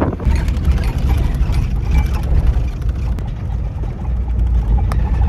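Camper van driving on a sand and dirt track, heard from inside the cabin: a steady low rumble of engine and tyres with scattered rattling clicks.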